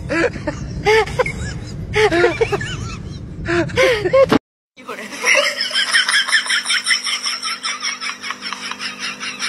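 A person laughing hard in several bursts over a low rumble; the sound cuts off about four seconds in. After a brief gap a different sound starts, a rapid pulsing of about four to five beats a second over a steady low hum.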